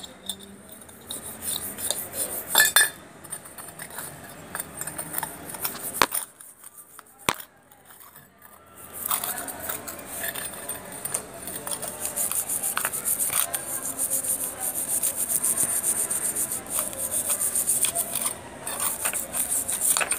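A small silver lamp being scrubbed by hand with tooth powder, a cloth and a toothbrush: scratchy rubbing strokes, with a brief lull about six seconds in, then fast, steady scrubbing through the second half.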